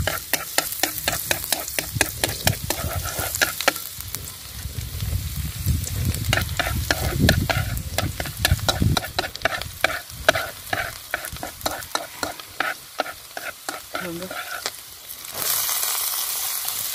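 Minced garlic sizzling in hot oil in a steel wok, stirred with wooden chopsticks that click and scrape against the pan many times. About fifteen seconds in, minced lemongrass is tipped into the oil and the sizzle jumps louder and stays high.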